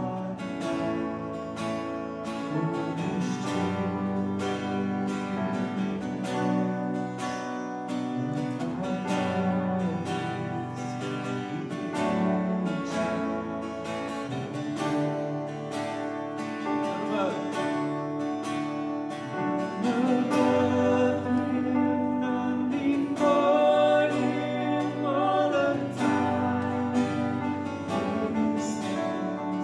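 Live worship song: an acoustic guitar strumming steadily with a sustained accompaniment, and singing over it, a little louder from about twenty seconds in.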